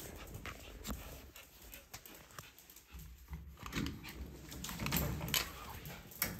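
Small dog fussing at a gate on a wooden floor: scattered clicks and scuffs of its claws and harness, with some soft dog whining.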